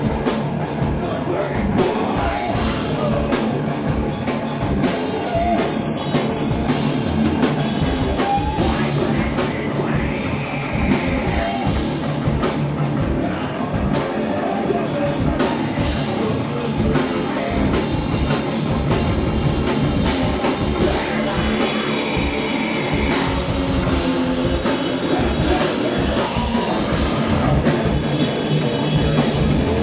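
Live heavy metal band playing a song: fast drum kit with cymbals, distorted guitars and a vocalist singing into a microphone, loud and continuous.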